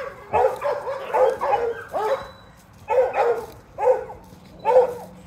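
Dog barking: a quick run of about five barks, then three single barks about a second apart.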